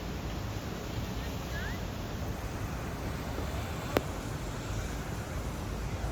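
Steady outdoor street noise, a low rumble with hiss over it, and one sharp click about four seconds in.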